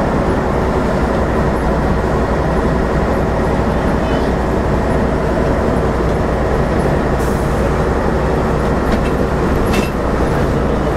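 Bus engine and road noise heard from inside the bus, a steady low drone as it drives along at speed, with a few short knocks or rattles along the way.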